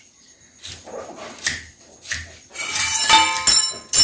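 A steel slotted spoon scraping and knocking against a stainless steel kadai as noodles are lifted out. Scattered clinks in the first two seconds give way near the end to a quick run of ringing metal clatter.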